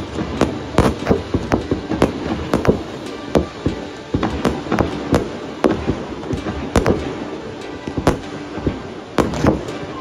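Professional fireworks display: a rapid, irregular run of sharp bangs and cracks, several a second, with a few louder bangs near the end.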